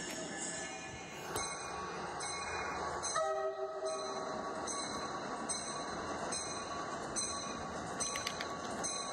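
LEGO train running along plastic track, its wheels clicking over the rail joints about once every 0.8 s over a steady running noise, with a short horn chord about three seconds in.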